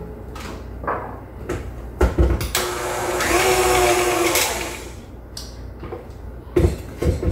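Electric stand mixer beating farmer's cheese: after a clunk about two seconds in, the motor runs for about two seconds with a whine, swelling and then dying away. Two more knocks near the end.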